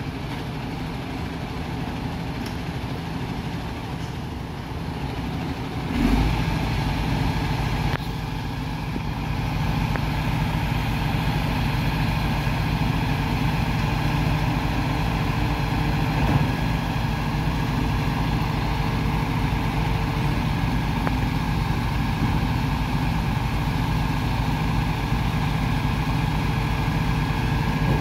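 MAN TGS 26.320 garbage truck's six-cylinder diesel engine idling. About six seconds in it steps up to a louder, deeper steady running note and holds it.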